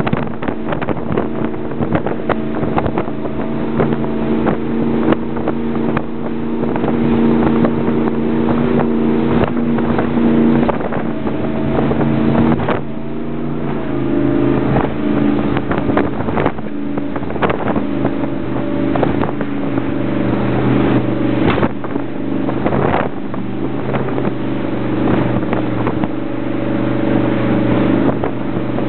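A 1999 Formula 271 Thunderbird's 502 EFI MerCruiser V8 inboard engine running steadily under way, with water splashing against the hull. The engine note drops a little about 13 seconds in and then holds steady.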